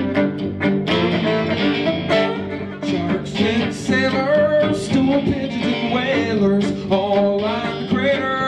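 Live acoustic folk band playing: strummed acoustic guitar with fiddle and upright bass, an instrumental stretch between sung verses.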